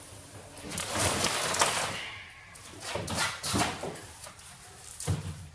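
Large cardboard shipping carton being opened and handled: cardboard scraping and rustling in a few rough bursts, with a knock a little before the end.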